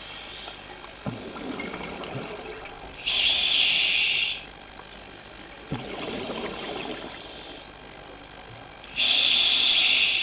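Rushing, hissing water coming in repeated surges. Two loud hissing surges of about a second and a half each, starting about 3 s and 9 s in, alternate with softer, duller rushes.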